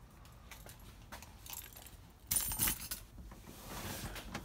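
Keys jangling with light clicks and rustling, with a brief louder jangle a little over two seconds in.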